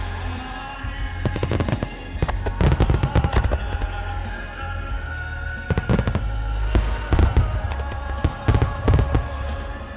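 Starmine fireworks: aerial shells bursting in rapid volleys, five clusters of sharp cracks and booms, over music playing on the show's sound system.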